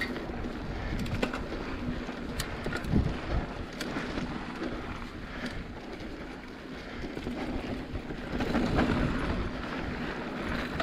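Mountain bike riding fast down a dry dirt trail: wind rushing over the microphone, tyres rolling on dirt, and scattered clicks and rattles from the bike, louder for a moment near the end as the pace picks up.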